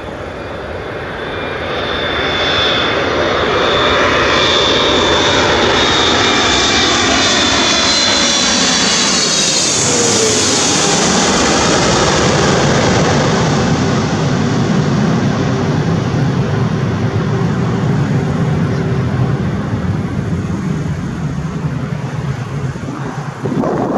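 Boeing 777-300ER's two GE90 turbofans passing low overhead on approach: a whine and hiss build up, the pitch drops sharply as the jet goes over about ten seconds in, and a deeper rumble follows as it moves away.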